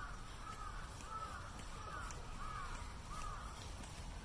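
Crows cawing in a steady run of short calls, about one or two a second.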